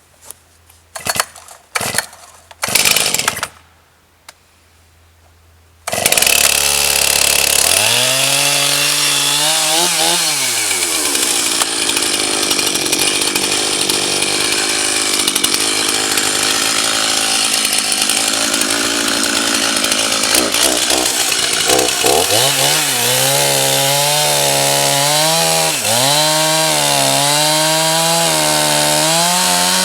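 A few knocks and clicks, then about six seconds in a Stihl MS311 gas chainsaw's two-stroke engine comes in loud and revs up. It settles into a steady cutting sound as it bucks through a small log. For the last several seconds it revs up and down repeatedly.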